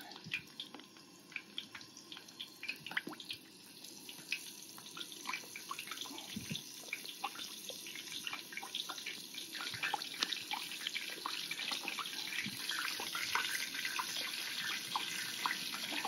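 Egg-washed, coated razor clams frying in hot oil in a pan: a steady sizzle with many sharp pops and crackles, growing louder and busier as it goes.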